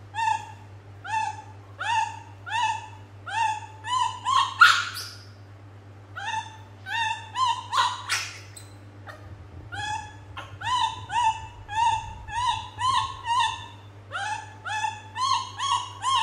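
Young monkey crying in a long run of short, rising calls, about one and a half a second, broken by two short pauses. Two brief, louder noisy bursts come about four and a half and eight seconds in.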